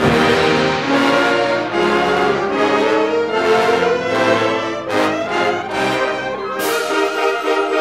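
Symphonic wind band playing a loud, full passage with brass to the fore, coming in all together right at the start after a brief drop in level.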